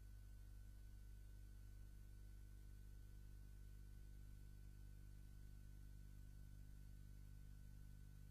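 Near silence: room tone with a steady low hum and a faint steady high tone.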